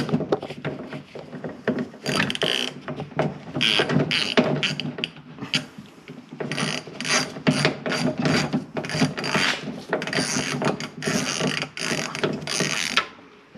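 Ratchet with a T27 Torx bit clicking in repeated short strokes as it turns a fastener, pausing briefly about halfway through.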